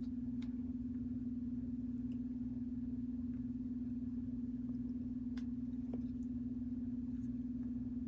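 A steady low hum that holds one pitch, with a few faint scattered ticks.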